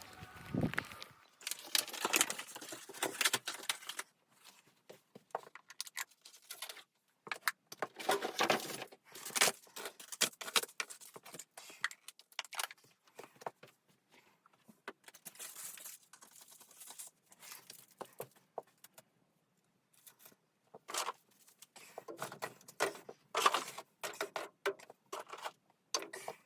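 Irregular clinking and rustling of objects being handled, in bunches with short pauses between.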